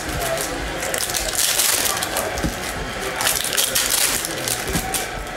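Foil wrapper of a Panini NBA Hoops trading-card pack crinkling and tearing as the pack is opened, with cards sliding against each other. The crinkling comes in several uneven bursts.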